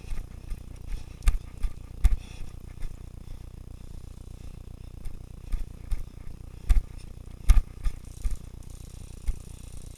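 Irregular knocks and rattles of handled gear, with several louder thumps spaced a second or so apart.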